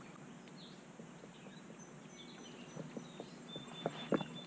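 Quiet lakeside ambience with faint, scattered high bird chirps. In the last second and a half a few light clicks and knocks sound, the loudest about four seconds in.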